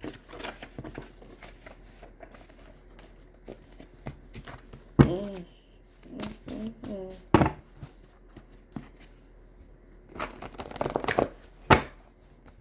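Tarot cards being handled and shuffled: soft crinkling and riffling with a few sharp snaps of cards, and a dense burst of shuffling near the end, with a brief murmur from the reader about halfway through.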